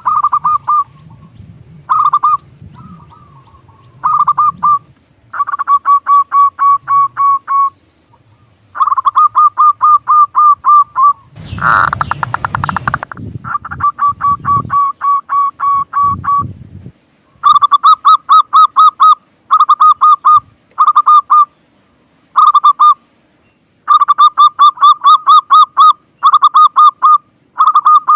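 Zebra doves (perkutut) cooing: repeated runs of short, quick notes, about five a second, in bursts of one to three seconds with short gaps. Near the middle comes a louder, rougher burst lasting about a second and a half.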